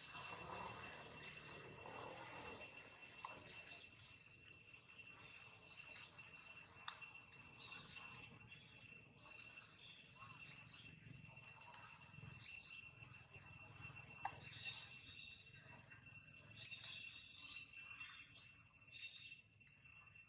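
A bird calling over and over, one short high call about every two seconds, about ten in all. Under it runs a steady high insect drone.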